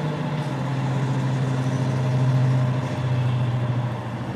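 Diesel locomotive engine idling with a steady low hum.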